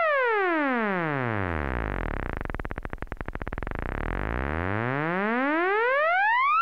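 Sawtooth oscillator of a Behringer 2600 analog synthesizer, its pitch swept by a slow triangle-wave LFO at full frequency-modulation depth. The tone glides steadily down from high until, about two to four seconds in, it is so low that it breaks into a fast clicking buzz. It then glides steadily back up to a high pitch at the end.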